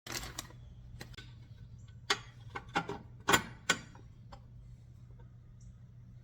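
Steel hitch parts clinking and knocking as the lock-and-latch service kit is fitted onto a PullRite Superglide hitch: about eight sharp metallic clicks, most in the first four seconds and loudest around three seconds in, over a steady low hum.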